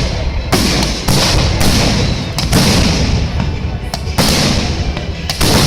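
Fireworks salute going off in quick succession: a sharp bang about once a second, each followed by a crackling hiss that fades out.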